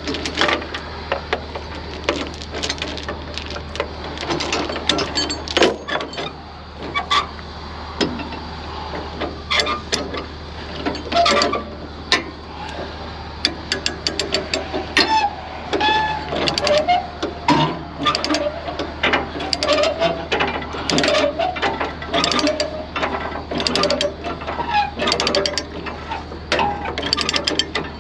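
Steel tie-down chains and binders being handled on a trailer deck: irregular metal clanks and chain-link rattles, over a steady low hum.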